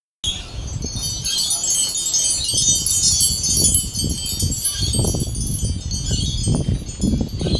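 Wind chimes tinkling continuously, many short high ringing notes overlapping, over a low rumble.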